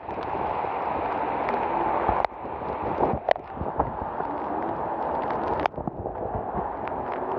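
Heavy rain and strong wind: a steady rushing noise with scattered knocks, changing abruptly about two seconds and five and a half seconds in.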